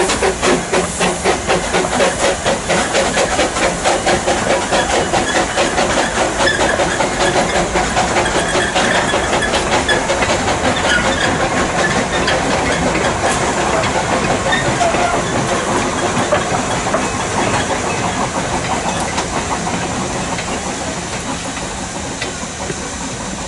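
Narrow gauge steam locomotive working, its exhaust beats chuffing over a hiss of steam. The beats come faster as it goes, and the sound slowly fades over the last several seconds as the engine draws away.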